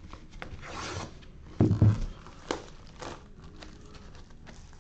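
Cellophane shrink wrap being slit and torn off a cardboard trading-card box, with scraping and crinkling, and a thump about one and a half seconds in.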